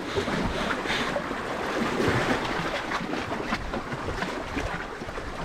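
Sea waves washing, with wind blowing on the microphone.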